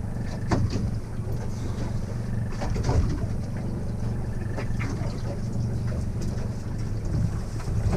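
Boat engine running steadily at a low hum, with water and wind noise and a few short knocks and splashes over it.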